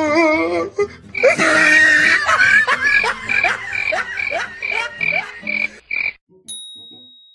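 A rhythmic run of short croaking calls, about three a second, starting about a second in and cutting off abruptly near the end.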